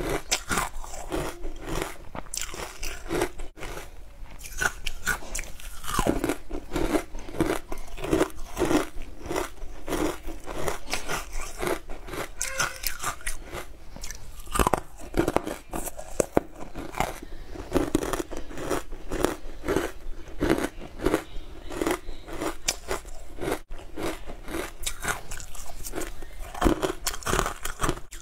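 Close-miked biting, crunching and chewing of frozen, ice-like chunks coated in green powder: a dense run of crisp crunches, several a second, with a few louder bites.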